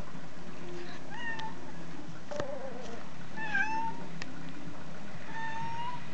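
Sphynx cat meowing three times, short high calls about two seconds apart. A couple of sharp clicks fall between the calls.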